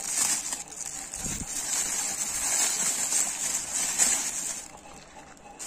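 Clear plastic packaging bag crinkling and rustling as it is handled and the gloves are pulled out of it, with a soft thump about a second in. The rustling dies down near the end.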